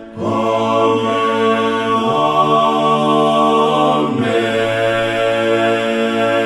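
Unaccompanied voices singing a hymn's closing "amen" in harmony, the chord held long and changing a few times.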